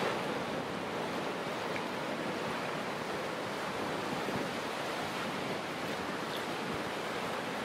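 Small surf breaking and washing up a sandy beach: a steady hiss of waves and foam.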